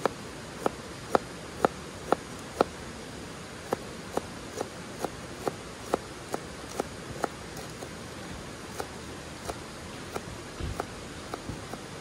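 Kitchen knife slicing myoga (Japanese ginger) on a small cutting board: short knocks of the blade on the board about two a second, loudest in the first few seconds and more spaced out near the end.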